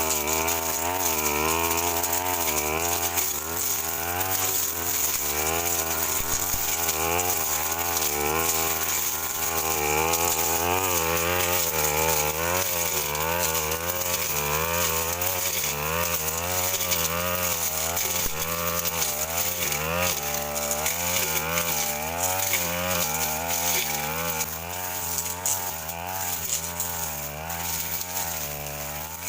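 Stihl FR 3001 backpack brush cutter's two-stroke engine running continuously, its pitch rising and falling every second or so as the blade is swung through woody scrub.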